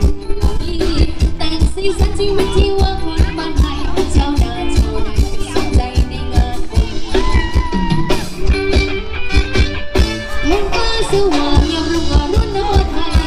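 A Thai ramwong dance band playing loud, amplified music with a fast, steady drum beat. A singer's voice comes in over the band in the second half.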